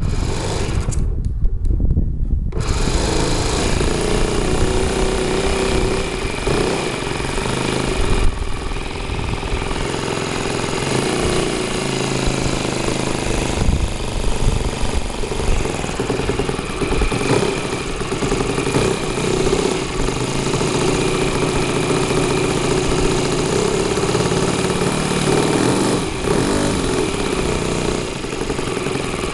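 Engine of a Falcon 56 RC model airplane starting up after a couple of brief bursts, then running steadily from about two and a half seconds in, its pitch shifting a little with throttle.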